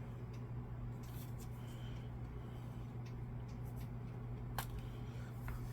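Faint clicks and light scraping from a plastic Xbox One controller and small tools being handled during disassembly, with one sharper click about four and a half seconds in. A steady low hum runs underneath.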